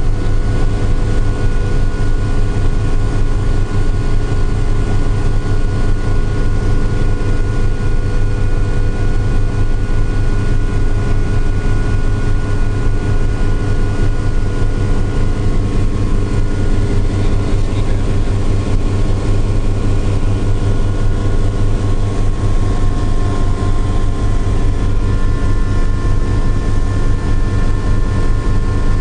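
Helicopter in flight heard from inside the cabin: loud, steady rotor and engine noise with a few steady whining tones above it.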